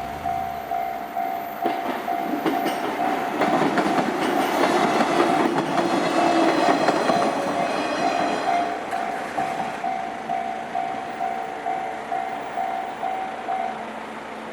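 Japanese railway level-crossing alarm ringing its steady ding-ding, about two strikes a second, while a train passes over the crossing. The wheels clatter over the rail joints, loudest in the middle. The alarm stops shortly before the end, once the train has cleared.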